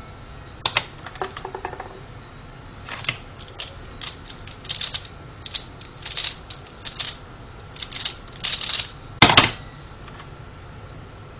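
Plastic Pyraminx puzzle being turned fast in a speedsolve: a quick, uneven run of clicking turns. About nine seconds in it ends with a loud knock as the puzzle is put down on the desk.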